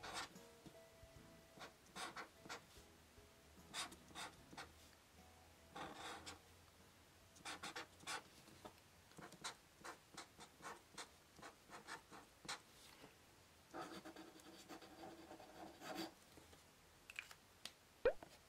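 Felt-tip marker writing letters on paper: short, faint scratchy strokes one after another. There is a short, sharp rising sound near the end.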